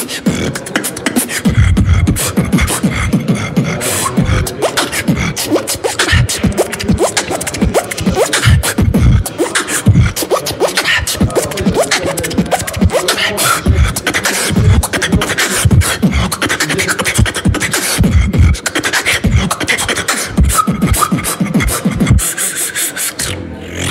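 Human beatboxing: a fast, unbroken run of mouth-made kick drums, snares and clicks, with deep bass thumps under them.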